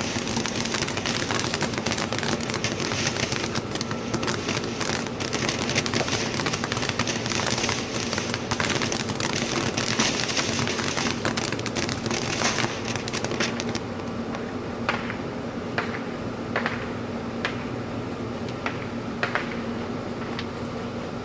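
Ground fountain firework spraying sparks with a steady hiss full of dense crackling, which dies away about fourteen seconds in; a few scattered sharp pops follow.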